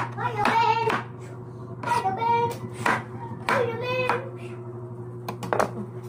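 Kitchen knife chopping carrots on a plastic cutting board: a handful of sharp, irregular knocks. A voice sounds in three short pitched phrases between them.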